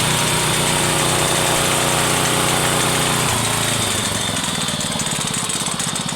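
Small petrol engine of a concrete vibrator running fast and steadily, then throttled back about three seconds in, its note dropping to a slower, pulsing idle.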